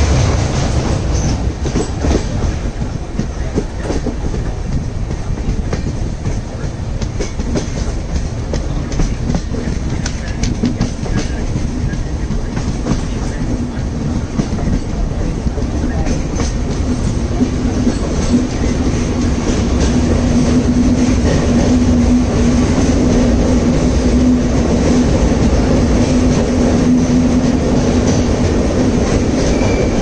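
Passenger train running on the rails, its wheels clicking over the rail joints with a dense rumble. A steady low hum comes in and grows louder through the second half.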